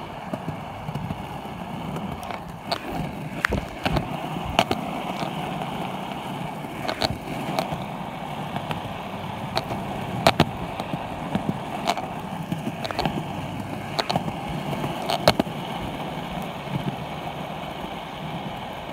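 Penny-style plastic cruiser skateboard rolling on a concrete sidewalk: a steady wheel rumble, broken by sharp clacks every second or two.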